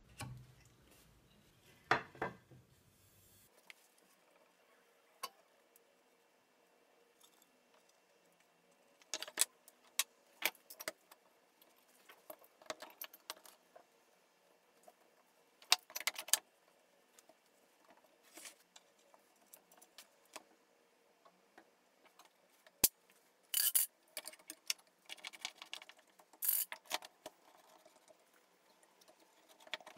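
Steel bar clamps being set on a glued-up panel: scattered bursts of light metallic clicks and clatter as the clamps are slid along their bars, positioned and tightened, with quiet between the bursts.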